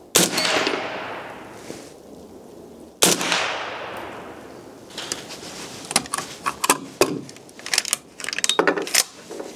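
Two rifle shots from a hunting carbine, about three seconds apart, each followed by a long fading echo. The rifle is being test-fired to check its zero before the hunt. A run of short clicks and knocks follows in the second half.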